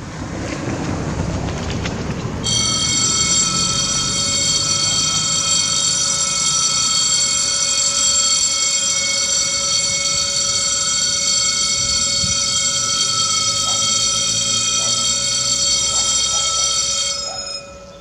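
A car drives over the level crossing, then a level-crossing warning bell starts about two seconds in. It rings loud and steady while the barrier arms come down and cuts off suddenly near the end, once the barriers are fully lowered for an oncoming train.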